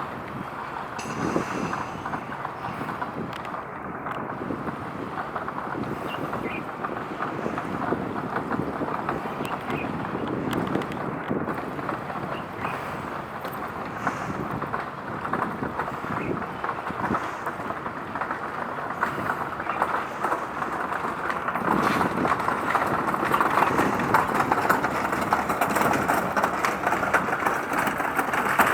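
Steady rushing noise of passing traffic, growing louder over the last several seconds.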